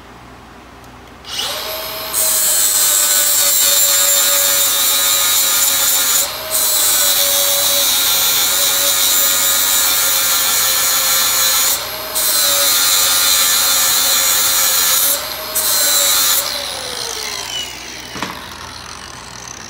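Milwaukee angle grinder with a flap wheel starting up and grinding the peened-over pin heads off a roller-chain link held in a vise, its motor whine steady under the grinding. The grinding breaks off briefly three times as the disc lifts from the metal. Near the end the grinder is switched off and winds down, its pitch falling.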